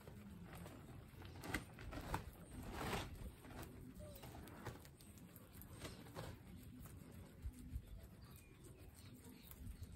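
Guinea pigs munching fresh wheatgrass: faint crunching and rustling of grass blades, with scattered soft clicks.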